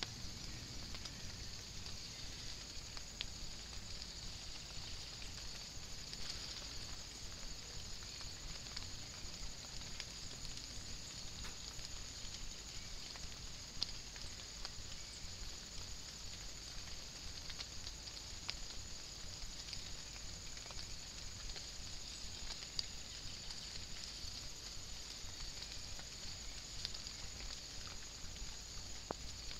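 Steady hiss of rain with scattered ticks of drops landing.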